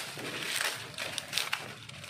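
Dry leaves rustling and crunching as they are pushed by hand into a fabric compost bag, in an irregular run of crackles.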